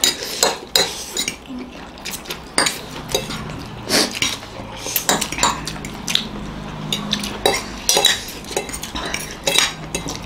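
Metal forks clinking and scraping on ceramic plates as three people eat noodles at once, a run of irregular sharp clicks.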